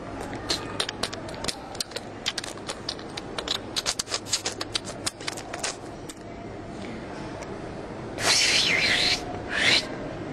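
Writing on a board: a quick, uneven run of chalk taps and clicks for about five seconds, then two scratchy drawing strokes near the end.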